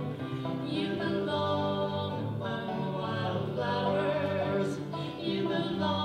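Live acoustic old-time folk music from a small duo: a sustained melody line held on long notes over steady guitar accompaniment.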